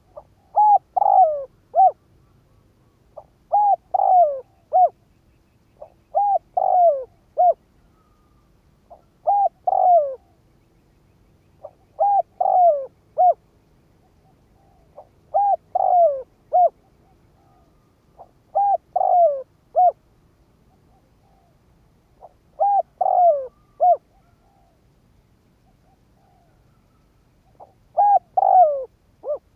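Spotted dove, a decoy male, singing its coo-coo-croo song: nine repeated phrases about three seconds apart. Each phrase is a faint short note and then three or four clear coos that fall in pitch.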